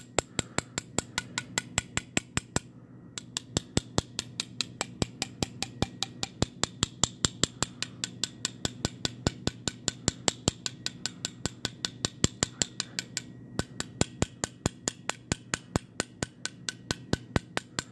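Small hammer tapping quickly and evenly on a bent brass trombone brace tube held in the hand, about four or five light strikes a second, pausing briefly twice. This is dent work, knocking down small bumps in the brass.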